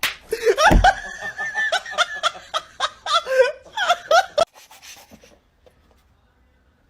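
A person laughing hard in high-pitched, pulsing bursts, cut off suddenly about four and a half seconds in. There is a brief low thump near the start.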